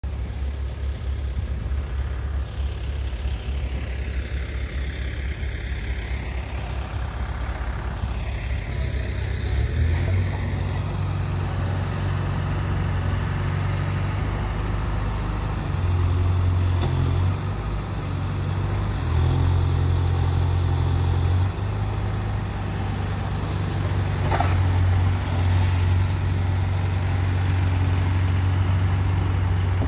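Diesel engines of earth-moving machinery, a backhoe loader and excavators, running steadily with a low engine note that steps up and down several times as they take load.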